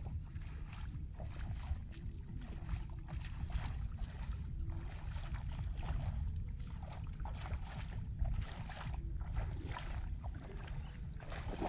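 Footsteps splashing through shallow floodwater among rice stubble, an irregular run of wet sloshing steps under a steady low rumble.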